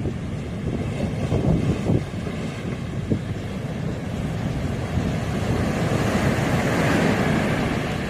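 Surf breaking and washing up a sandy beach, with wind buffeting the microphone. The hiss of a wave's wash swells loudest about three-quarters of the way through.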